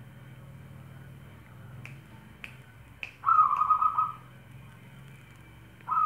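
Zebra dove (perkutut) singing: three short sharp notes, then a rolling, trilled coo, with a second coo starting near the end. A faint low hum lies underneath.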